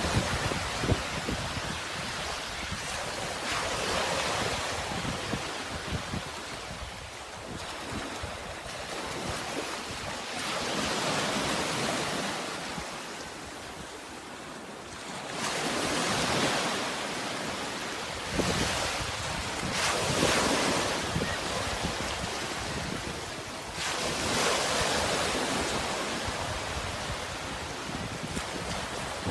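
Sea surf: waves breaking and washing in, a rush of water that swells and fades every four to six seconds.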